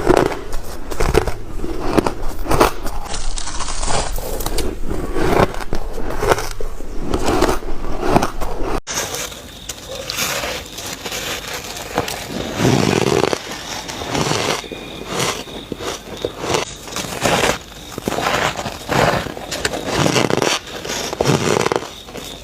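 Shaved ice being bitten and chewed close to the microphone: a dense, continuous run of crisp crunches, somewhat softer after about nine seconds in.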